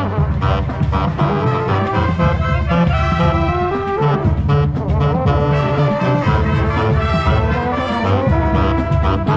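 Marching band playing a loud, brass-led piece, with the brass horns heard close by and a pulsing low bass underneath.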